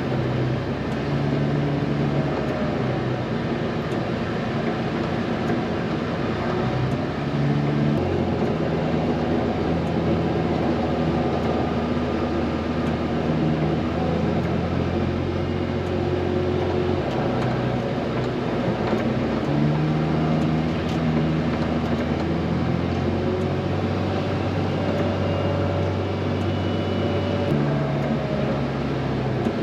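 Heavy vehicle's diesel engine running steadily, its engine speed stepping up and down several times.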